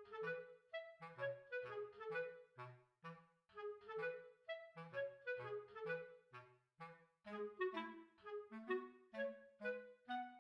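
Background music: a bouncy tune of short, detached notes over a bass line that alternates between two low notes.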